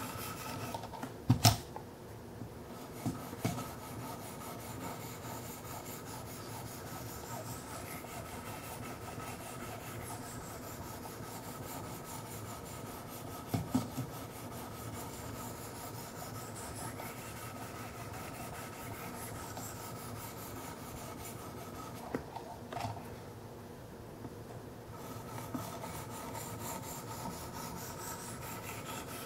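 Wicked Edge 1000-grit diamond stones stroking along the Kershaw Skyline's 14C28N steel blade: a steady, quiet rubbing scrape, with a few sharp clicks now and then. This is the finishing pass at 1000 grit, done with light strokes that keep the stone on the blade.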